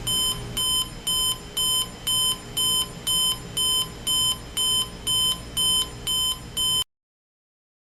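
Jensen JCR-310 clock radio's alarm beeping, short electronic beeps about twice a second in a steady even rhythm, cutting off suddenly near the end.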